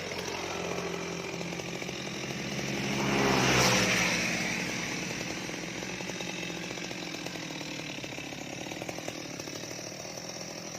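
Stihl MS 230 two-stroke chainsaw cutting into the trunk of a mango tree. The engine swells to its loudest about three and a half seconds in, then runs steadily.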